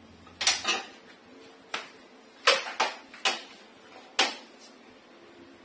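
About seven sharp clicks and knocks at uneven spacing, from hands handling the clamp meter and wiring on the opened indoor unit of a split air conditioner.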